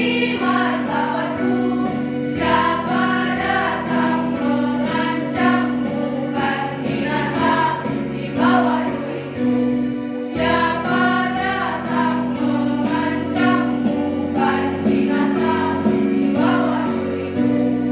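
Girls' choir singing in harmony over instrumental accompaniment with held chords and a moving bass line.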